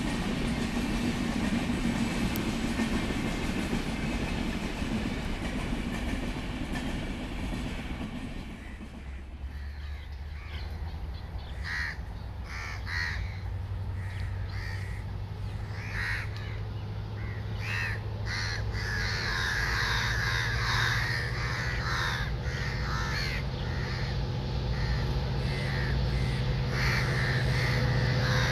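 Passenger coaches running past on the track, cut off about nine seconds in. Then crows caw several times while the low drone of an approaching diesel locomotive, a WDP4D hauling the Rajdhani Express, builds up and grows louder to the end.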